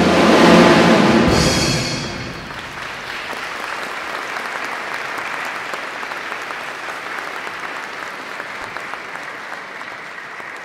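A wind band ends its piece on a loud final chord that dies away within about two seconds, followed by steady audience applause.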